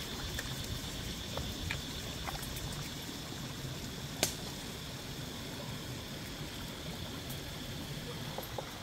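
Steady rush of running stream water, with faint wet clicks and squelches of hands rubbing chili spice paste into a whole fish, and one sharper click about four seconds in.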